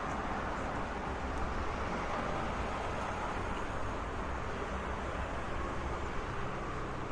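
Steady road traffic noise: a continuous wash of vehicles and tyres on the road, with a low rumble under it and no single event standing out.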